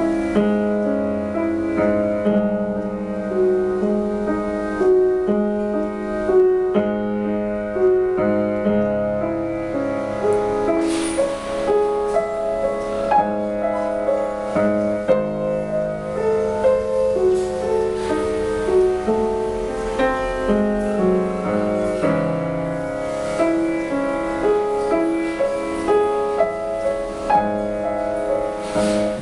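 Upright piano played solo: a steady, flowing run of notes over sustained low notes.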